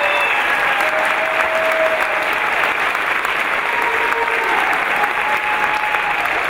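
Audience applauding steadily, with scattered cheering voices.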